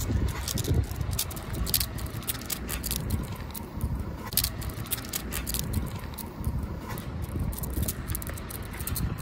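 Footsteps of a person and a dog on a lead crossing asphalt: irregular scuffs and sharp clicks over a steady low rumble.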